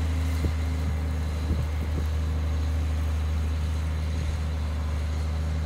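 Case IH Quadtrac tractors' diesel engines running hard under load as they drag a stuck SeedMaster air drill free: a steady low drone, with a few faint knocks in the first two seconds.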